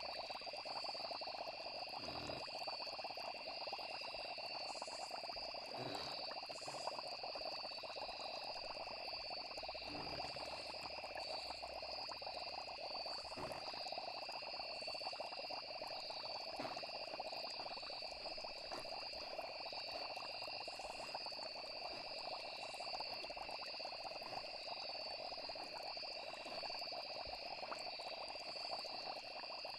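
Night nature ambience: a steady chorus of trilling insects and frogs, with a soft low knock every three or four seconds.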